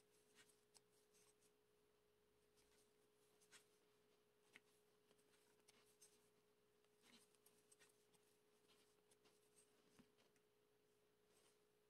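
Near silence: a faint steady tone with a few faint ticks scattered throughout.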